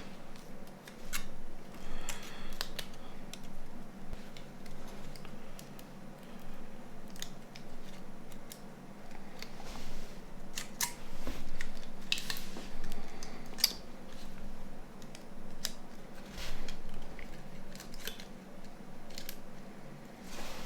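Scattered light clicks, taps and short scrapes of small plastic and metal phone parts being handled and fitted back together while a Nokia 9210's display assembly is reassembled, over a faint steady hum.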